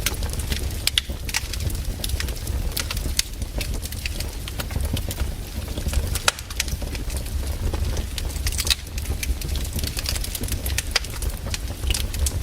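Burning firewood crackling, with many irregular sharp pops and snaps over a steady low rumble.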